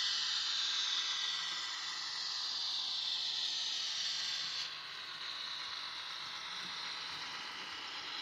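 H0 model Märklin Robel track machine running along the track with a boxcar in tow: a steady whirr of its motor and gearing with wheel noise on the rails. It drops in level about halfway through as the train moves away.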